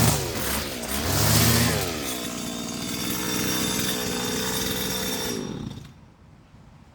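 Petrol lawn mower engine running, its speed dipping and surging over the first two seconds, then running steadily before it shuts off shortly before the end.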